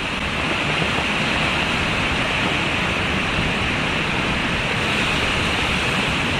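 Catfish deep-frying in a wok of hot oil, a steady sizzle.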